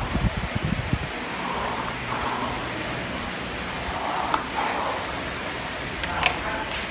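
Air-resistance flywheel of a Concept2 rowing machine spinning fast under hard rowing: a steady whooshing hiss, with a few low thumps in the first second.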